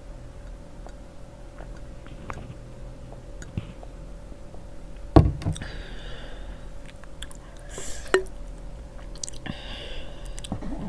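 Close-miked mukbang drinking and eating sounds: soft gulps and mouth clicks, then a single sharp knock about halfway through as the glass mug is set down on the table. Short scraping and rustling noises follow as the wooden fork works through the noodles.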